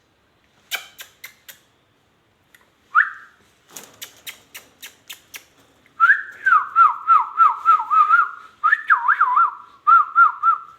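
A short rising whistle note, a few sharp clicks, then a long rapid warbling whistle whose pitch swings quickly up and down. It is loud and continues to the end.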